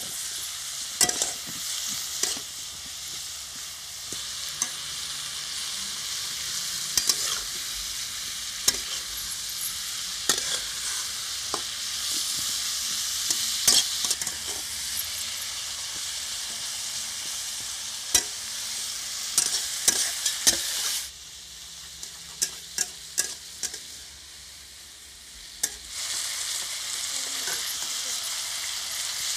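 Sliced radish sizzling in hot oil in a metal kadai while a metal spatula stirs and scrapes it, knocking against the pan with frequent sharp clicks. For a few seconds in the latter part the sizzle drops quieter, then comes back up.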